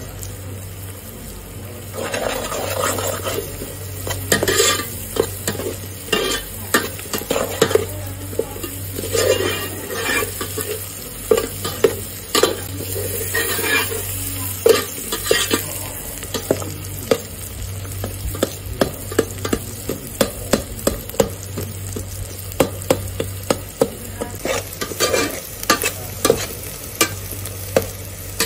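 A long metal spoon stirring shrimp and vegetables frying in hot oil in an aluminium pot, scraping and clicking against the pot many times over a steady sizzle.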